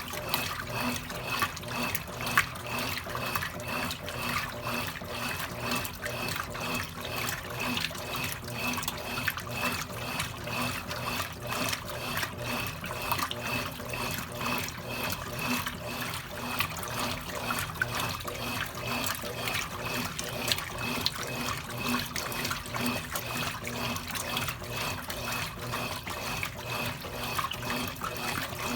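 Consul Cargo 8 kg washing machine running with water rushing and sloshing inside it, steady, with a faint regular pulsing about twice a second.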